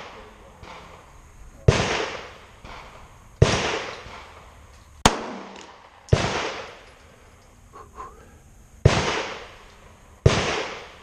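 Pistol shots: six single shots fired a second or two apart. Each is a sharp crack with an echoing tail that dies away over about a second.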